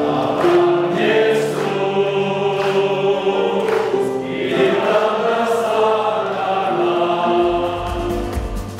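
Men's choir singing a hymn together, with long held notes.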